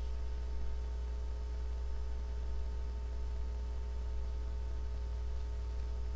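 Steady low electrical hum with a few faint steady tones above it, unchanging throughout; the needlework itself makes no sound that stands out.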